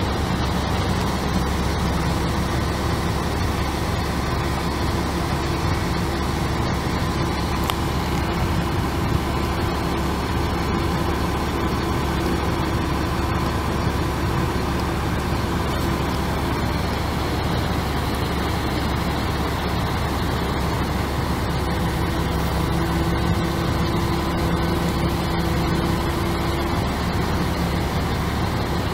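Caterpillar C7 inline-six turbo diesel engine of a 2001 Chevrolet C8500 bucket truck, running steadily.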